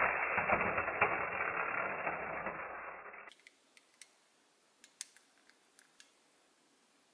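A toy car rolling through slime on a tabletop, a noisy rush that fades out after about three seconds. Then a few faint, sharp plastic clicks as a toy car is handled in its clear plastic capsule.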